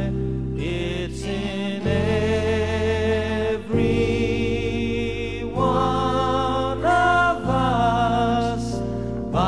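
Slow music with held chords that change every second or two and sustained vocal-like tones over them.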